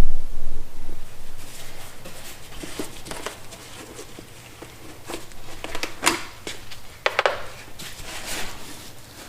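A heavy low bump at the start, then scattered light knocks, clicks and rustles as a plastic funnel and oil bottle are handled at the mower's oil fill.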